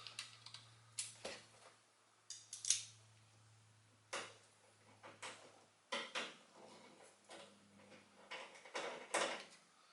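Metal hand tools clinking and clicking at irregular intervals as nut drivers are picked up and tried on a fastener. A low steady hum underneath stops about six seconds in.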